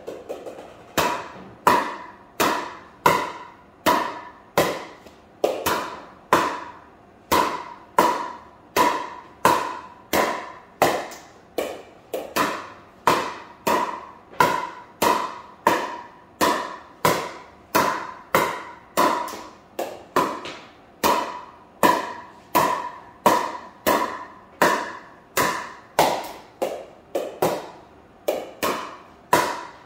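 Sharp pocks of a plastic pickleball struck by paddles in a fast, unbroken volley exchange, about two hits a second, each hit ringing briefly.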